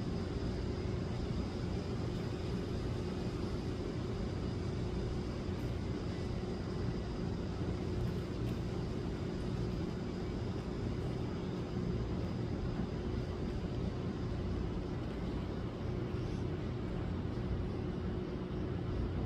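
Steady low rumble with a faint constant hum, like distant traffic or a running machine, even throughout.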